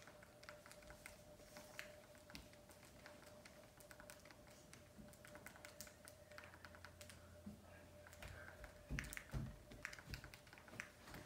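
Faint clicking of remote-control buttons, pressed in quick runs to move the selection across the Mi Box's on-screen keyboard, with a few louder knocks about nine seconds in. A steady faint tone hums underneath.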